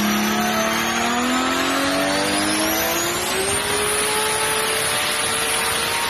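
Performance car engine pulling under load, its note rising steadily for about three and a half seconds and then holding level. A high whine rises with it and then holds.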